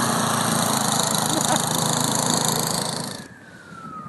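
A small engine running under a loud rushing noise that cuts off abruptly about three seconds in, followed by one long tone falling in pitch.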